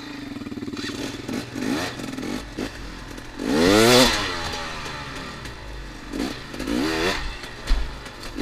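2014 KTM 250 XC-W two-stroke dirt bike engine being ridden, revving up and down several times with one big rising rev about halfway through. A sharp knock comes near the end.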